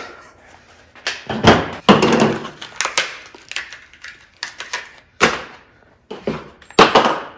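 Clatter of tools and plastic cases and packaging being handled and set down on a workbench: a run of sharp knocks and clicks, heaviest about a second or two in, with single loud knocks near the middle and near the end.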